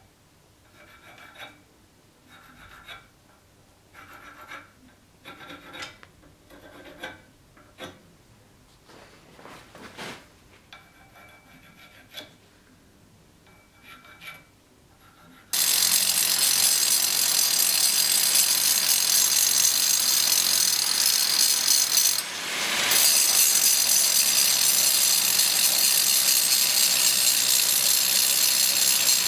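Short scratching strokes as lines are marked across the steel sword blade held in a vise. About halfway through, an angle grinder starts suddenly and cuts into the steel with a loud, steady grinding noise that briefly eases off once.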